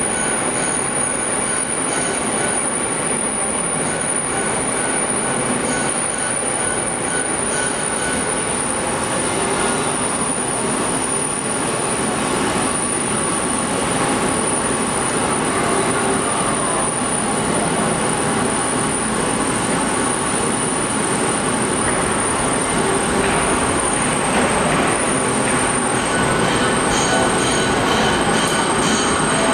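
Metal lathe running and taking a cut on the workpiece: a steady mechanical noise with a thin, high, steady whine over it.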